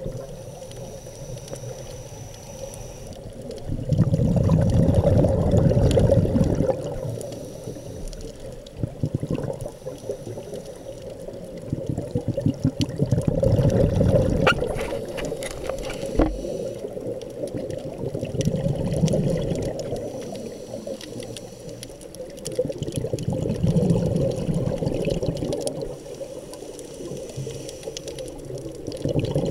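Scuba diving regulator breathing underwater: a diver's exhaled bubbles rush out in a louder swell about every four to five seconds, with a quieter steady rushing between breaths.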